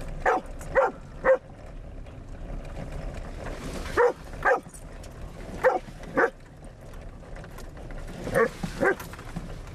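A dog barking at water splashing up around the car: short, loud barks, mostly in pairs a half-second apart, about nine in all, over steady low road noise inside the car.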